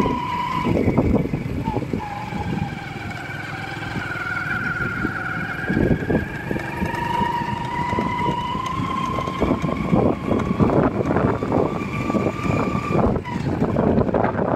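Engine of a vehicle climbing a hill road, a steady whine that wavers slowly in pitch, over uneven rumbling.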